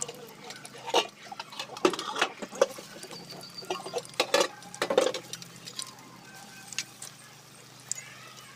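Battered raw-banana bajji frying in oil in a steel kadai, with irregular sharp pops and crackles that are thickest in the first half and thin out near the end.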